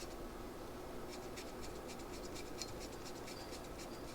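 Faint scratching with light irregular ticks of small metal parts being handled, as the idle adjustment screw is threaded back into a small go-kart engine carburetor.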